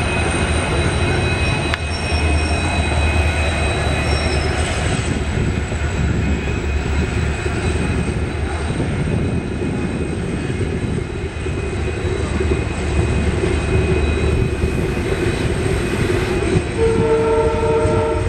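Trains passing close at speed: a steady, loud rumble of wheels and locomotive as a WDP4 diesel goes by, with a thin steady whine in the first few seconds. Near the end a train horn sounds once for about a second and a half.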